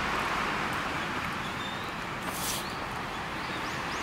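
Outdoor ambience of steady distant traffic noise, with a brief high hiss about two and a half seconds in and a few faint, high bird chirps in the second half.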